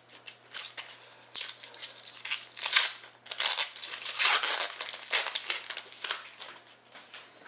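Crinkling and rustling of trading-card packaging as hockey cards are handled, in irregular bursts.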